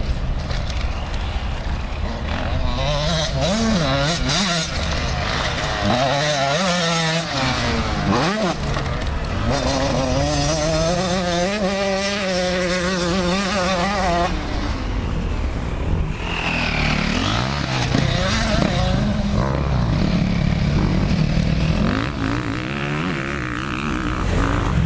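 Motocross dirt bike engines revving hard and easing off, the pitch rising and falling with the throttle, sometimes two at once.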